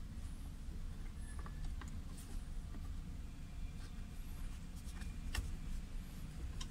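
A few scattered metallic clicks and light knocks from hand tools working on a Mitsubishi Lancer's handbrake lever mechanism, the sharpest about five seconds in, over a low steady rumble.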